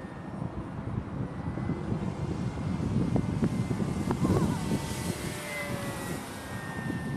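Brushless electric motor and propeller of a Parkzone P-51D RC plane whining faintly in flight, the pitch dipping slightly in the second half, over a low rumble of wind on the microphone.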